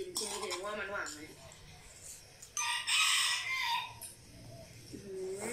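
A loud animal call lasting about a second, about three seconds in, dropping in pitch at its end; a brief voice is heard near the start.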